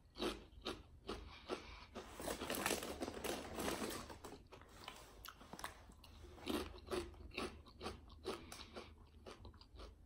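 Potato chips being bitten and chewed close to the microphone: a run of crisp, irregular crunches, with a fresh bite about six seconds in.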